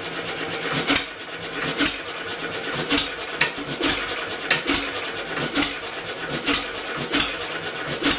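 Homemade two-cylinder four-stroke engine converted from an air compressor, turning over with a steady hum and firing with a sharp bang about once a second at uneven intervals. It is hitting on its own but not quite enough to keep itself running.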